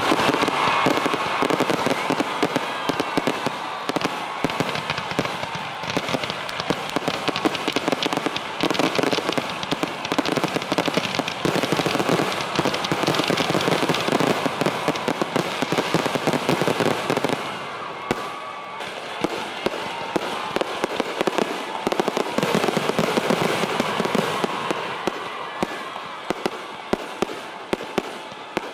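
Aerial fireworks going off in quick succession: a dense, continuous crackling and popping of bursting shells. It eases somewhat after about two-thirds of the way, then thins near the end into separate sharp bangs.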